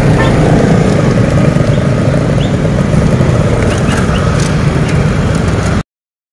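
Motorcycle engines and traffic running steadily at close range, then cut off suddenly to silence near the end.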